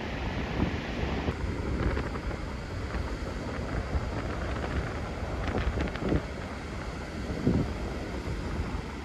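Wind buffeting the microphone in gusts over the steady wash of surf breaking on a sandy shore; the sound changes at a cut about a second in.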